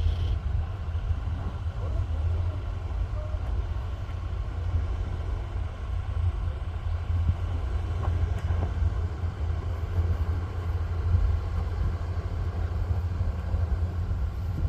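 Kubota rice combine harvester's diesel engine running steadily under load, a continuous low rumble.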